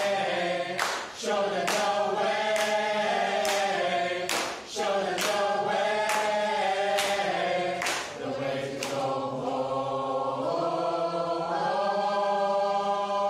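A choir singing in harmony, with long held chords.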